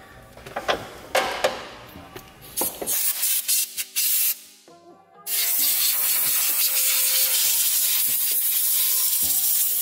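Compressed-air blow gun hissing into the spark plug wells of a Mercedes-AMG M113K V8, blowing out dust before the plugs are removed. After a few knocks, it gives short bursts, then a steady blast of about four seconds that cuts off near the end.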